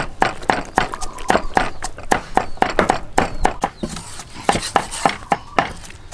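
Cleaver chopping on a wooden chopping block, a steady run of sharp knocks several times a second.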